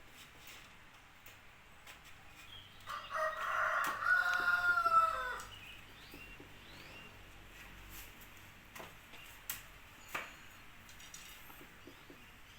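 A rooster crows once, a call of about two and a half seconds that falls off at the end. A few light clicks follow later.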